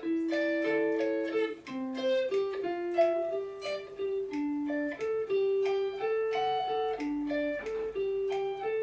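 Guitar picking a melody line one note at a time, in a steady rhythm.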